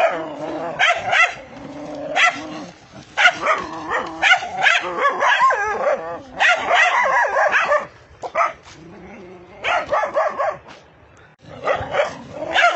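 Angry dogs barking fiercely in clusters of rapid barks, with short lulls between the volleys.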